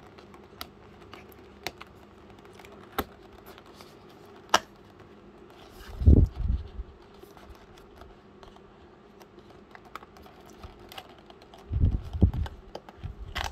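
Cardboard retail box being worked open by hand, its tape being cut: scattered light clicks and scrapes, with two dull low thumps, about halfway through and again near the end, as the box is knocked against the desk.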